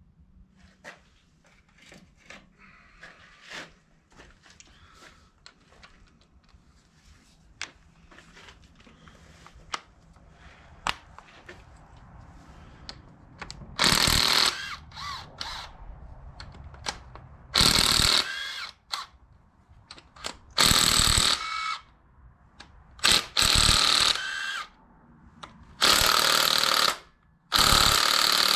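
Small cordless impact gun hammering on the cylinder head bolts of a John Deere 332 engine in about seven bursts of roughly a second each, starting about halfway through. Before that there are only faint scattered clicks of the socket and tools being handled.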